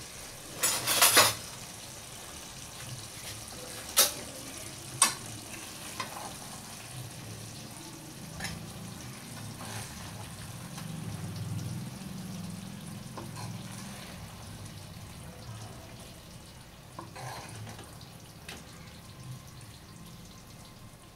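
A spoon clinking and scraping against a non-stick kadai and a glass serving bowl as chicken curry is spooned out. There is a loud cluster of clinks about a second in, two sharp clinks a few seconds later and fainter ones after, over a steady faint background hiss.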